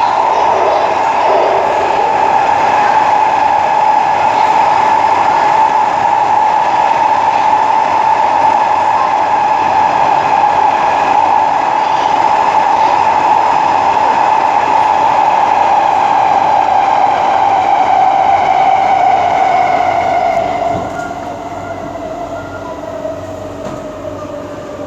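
Inside a Kawasaki-Sifang C151A metro car in motion: a loud steady whine from the traction motors over running rumble. About 20 seconds in, the level drops and the whine starts to fall in pitch as the train slows.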